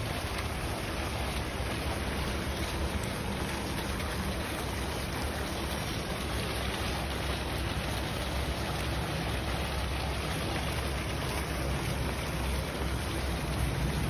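Foaming fountain jets in a pool splashing steadily: a continuous, even rush of falling water, with a low rumble underneath.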